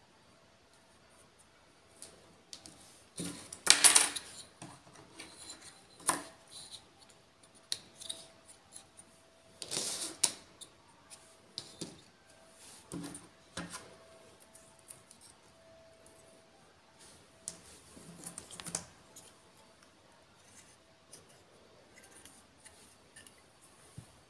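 Small plastic toy figures and their accessories being handled on a tabletop: scattered light clicks and taps as pieces are fitted together and set down, with a couple of louder handling noises about four and ten seconds in.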